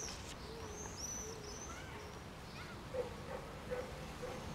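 Birds calling: short arching high chirps about once a second, with a lower arching call repeating alongside, over a faint steady background.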